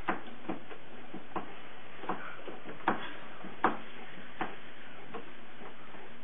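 Treadle-driven potter's wheel clicking in a steady rhythm as it turns, about one click every three-quarters of a second.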